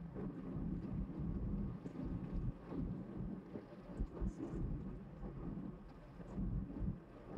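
Perodua Bezza car driving: a low, uneven rumble of engine and road noise.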